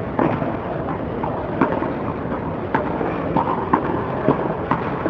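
A tennis rally: about half a dozen sharp pops of rackets striking the ball, roughly a second apart, over a steady background hiss.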